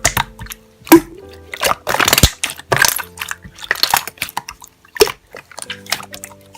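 Slime being squeezed and pressed by hand, giving an irregular string of wet clicks, pops and squelches, with the sharpest pops about a second in and just after two seconds. Soft background music plays underneath.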